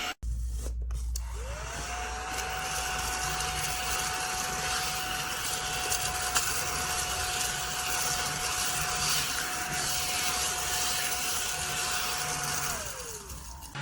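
Small battery-powered desktop vacuum cleaner switched on, its motor whine rising as it spins up, running at a steady pitch with airflow hiss, then winding down in pitch as it is switched off near the end.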